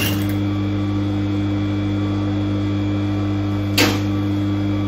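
Electric sewing machine motor humming steadily, with a single sharp click near the end.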